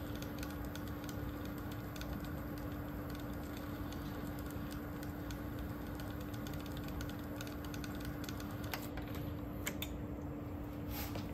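A steady low hum with faint hiss under it and scattered light clicks, a few louder ones near the end, on a bench where a cassette deck is playing an alignment test tape.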